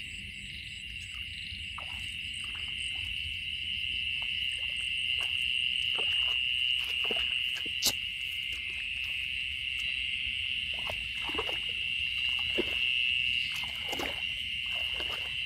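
Steady high-pitched chorus of crickets and other night insects, with scattered soft rustles of footsteps and brushing through grass and undergrowth.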